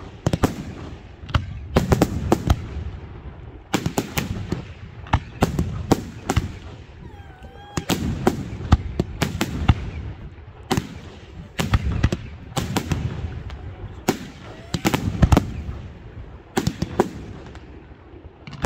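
Professional fireworks display: aerial shells and batteries bursting in a rapid, irregular series of sharp bangs, some in quick clusters, with low rumbling between them. A few faint short whistles rise about halfway through.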